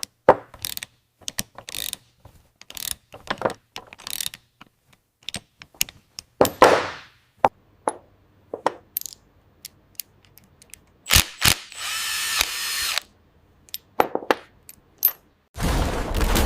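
A run of sharp metallic mechanical clicks and clacks, irregularly spaced, with a short rasping sweep about halfway through. A louder rumbling rush begins near the end.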